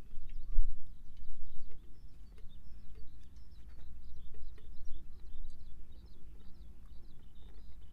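Small birds chirping with short, repeated calls, over a low rumble of wind on the microphone that rises and falls.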